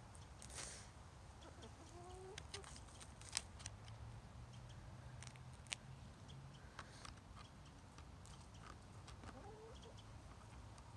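Hens clucking softly and briefly, a couple of low calls, while pecking at greens, with a few sharp clicks between them.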